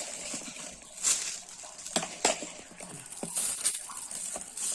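Scattered light clicks and taps with faint rustling from handling kitchen items and plastic bags.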